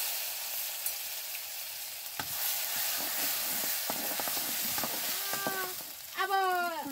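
Hot oil sizzling steadily in a black iron kadai as a metal ladle stirs it, with a few light clinks of the ladle on the pan. Near the end, short high-pitched voice-like calls rise over the sizzle.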